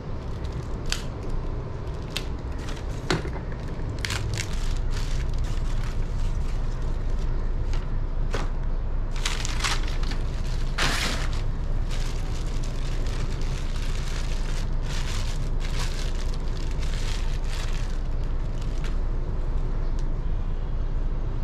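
Packaging being torn open and handled, with short crinkles and rustles and a couple of longer tearing rips about nine to eleven seconds in. A steady low rumble runs underneath and grows louder a few seconds in.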